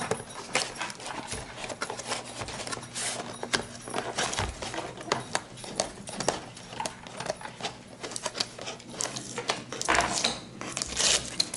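Packaging of a Milwaukee M12 1/4-inch ratchet being handled and opened: irregular rustling, clicks and knocks, with busier handling about ten seconds in.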